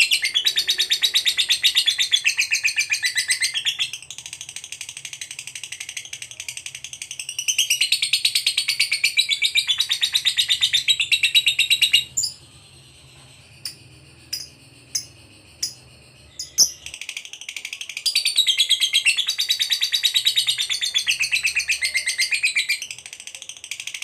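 Lovebird giving its long, rapid, high-pitched chattering trill ('ngekek'), the sustained song prized in competition lovebirds. It comes in long runs, with a pause of several seconds about halfway through broken by a few single sharp chirps.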